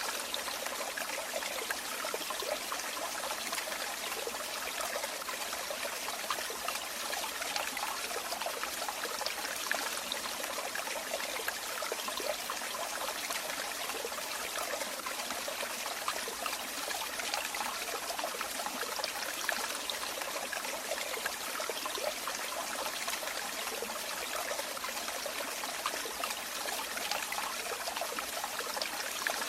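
Water running and trickling steadily, like a small stream or a falling flow, a constant splashing hiss with no pauses.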